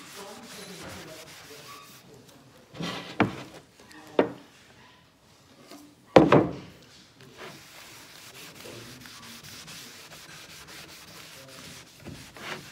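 Rag rubbing wood stain over a sanded wood panel, a soft steady scrubbing. A few sharp knocks and clatters break in about three and four seconds in, the loudest just after six seconds, and a smaller one near the end.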